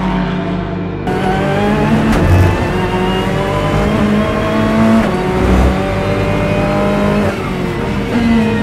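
Ferrari 488 race car's twin-turbocharged V8 at racing speed, heard from the cockpit. The engine note climbs and drops in pitch through the gear changes and falls near the end.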